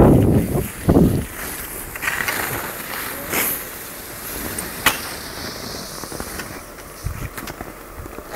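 Wind buffeting the microphone in the first second, then a quieter hiss with a few scattered clicks and short scrapes, such as skis shifting on snow.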